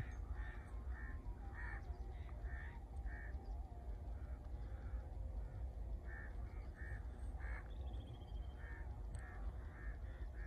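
A bird calling over and over, short calls about twice a second with a pause partway through, over a steady low rumble.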